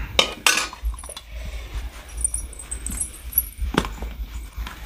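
Stainless steel plates, bowls and a ladle clinking and knocking as food is served, with a sharper knock just before the end as a plate is set down on the floor.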